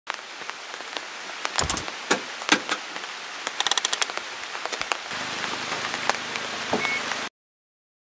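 Rain falling, an even hiss with many scattered sharp drops and clicks. A low steady hum joins about five seconds in, and everything cuts off abruptly shortly before the end.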